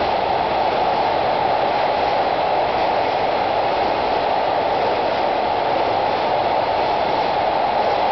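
Freight train passing at speed through a rail tunnel station: a loud, steady rushing noise from the passing wagons that holds even throughout, with no separate wheel clicks standing out.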